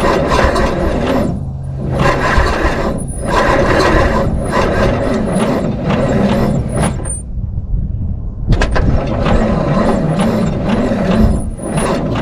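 Starter cranking the 779-cubic-inch Waukesha straight-six in several long bursts with short breaks and a longer pause past the middle, the engine turning over in a slow, even rise-and-fall without catching and running. The owner takes it to be starved of fuel.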